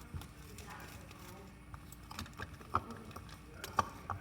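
Sticky slime being kneaded and pulled by hand, giving scattered short clicks and pops, most of them in the second half.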